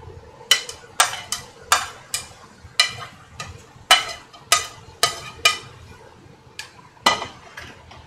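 A metal utensil clinking against a metal cooking pot: about fifteen sharp, ringing clinks at irregular intervals, thinning out near the end.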